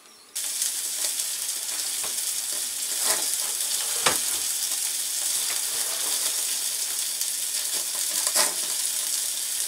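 Meat sizzling on the grate of a small portable gas grill, a steady crackling hiss with a few sharper pops.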